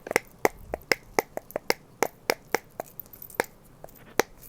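Banana-shaped silicone dimple fidget keychain being popped repeatedly: a quick string of sharp pops, a few a second, thinning out near the end.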